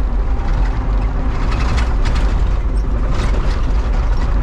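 Mini excavator's diesel engine running with a steady low drone, heard from inside the cab as the machine travels, with scattered clanks and rattles.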